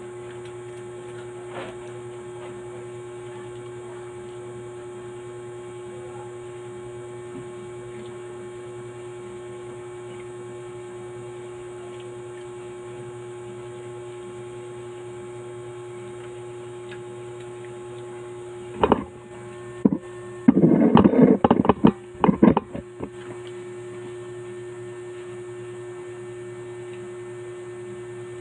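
Steady electrical mains hum, one unchanging tone over a low buzz. About two-thirds of the way through, a short run of loud, irregular bangs or bursts breaks over it for a few seconds.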